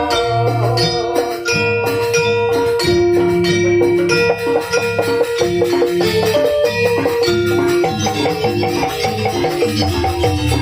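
Banyuwangi Janger gamelan music played live: struck metal-keyed percussion ringing out melody notes over sustained low tones and a steady beat.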